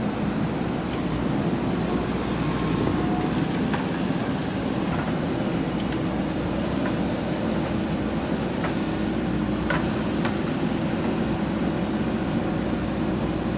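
JCB backhoe loader's diesel engine running steadily as the machine works, with a few light clanks.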